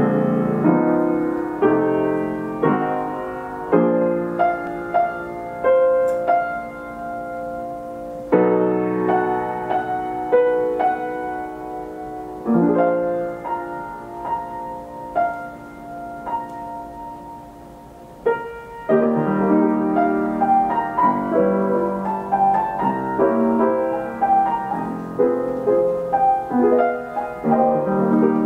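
Steinway Model S grand piano playing itself from a roll on its Ampico B reproducing mechanism, heard in the room. The playing begins suddenly, with chords and melody, eases to a softer passage about two-thirds of the way through, then comes back louder.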